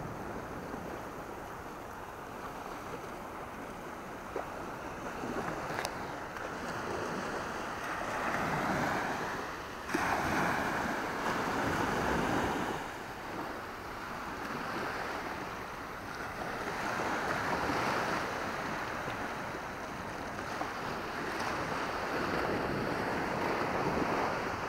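Small sea waves breaking and washing up the sand, swelling and fading every few seconds, with a brief click about ten seconds in.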